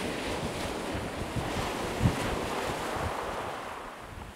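Wind and breaking surf, with wind buffeting the microphone in low thumps, the sharpest about two seconds in; the rushing eases off near the end.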